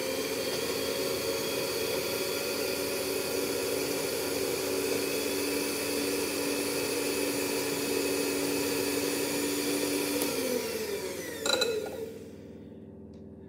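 Electric hand mixer running steadily with its beaters whisking cake batter in a bowl, then winding down in pitch about ten seconds in. A short loud clatter comes just before it falls quiet.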